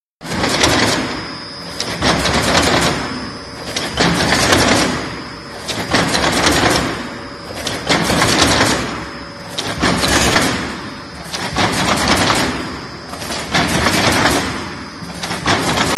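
Hexagonal wire netting (chicken wire) machine running, a loud clattering that cuts in at once and swells and fades in a steady cycle about every second and a half as the machine twists the wire into mesh, with a faint steady high tone running through it.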